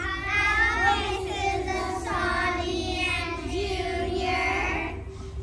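A group of children's voices singing together in a long, wavering chorus that eases off about five seconds in.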